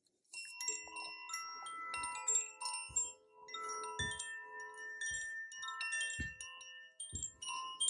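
Chimes ringing: many bell-like tones of different pitches struck one after another and left to ring over each other, with soft low knocks between the strikes.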